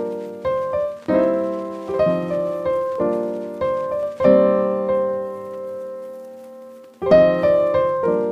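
Background piano music: chords struck about once a second that ring and fade, with one chord left ringing for almost three seconds near the middle.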